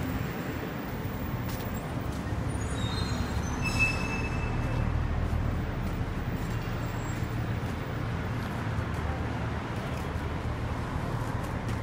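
Steady road traffic noise, a low even rumble of passing cars, with a few faint brief high tones about four seconds in.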